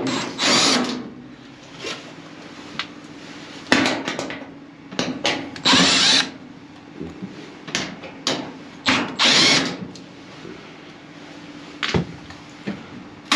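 Cordless drill-driver spinning screws out of an electric dryer's panels in several short bursts of under a second each, with clicks and knocks of the panels and tools between.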